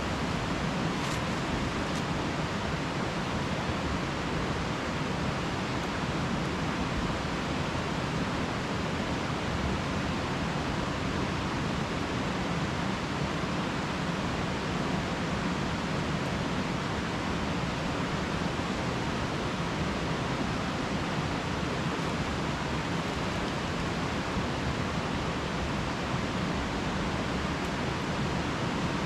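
Steady rushing of a river flowing past, an even unbroken wash of water noise, with a couple of faint clicks about a second and two seconds in.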